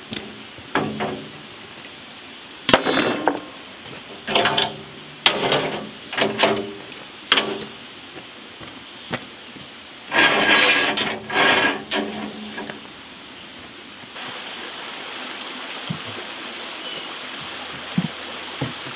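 Steel rebar clanking and ringing as it is handled on a manual rebar bender, in a series of sharp metallic knocks with a longer rattling clatter a little past halfway. After that comes the steady rush of a flowing creek, with a few light clicks of bar against the wooden forms.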